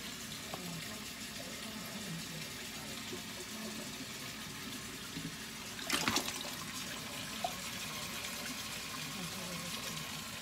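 Faint, steady running water from a kitchen tap. About six seconds in there is a brief clatter as the plastic colander of bean sprouts is handled.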